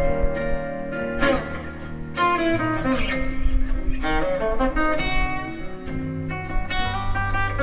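Live country band playing an instrumental passage: guitar melody over a steady drum beat.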